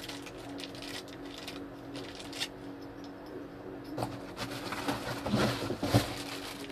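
Plastic packaging crinkling and rustling as a new electric fan's wrapped parts are handled, light crackles at first and louder rustling in the second half, with a sharp knock about six seconds in. A low steady hum runs underneath.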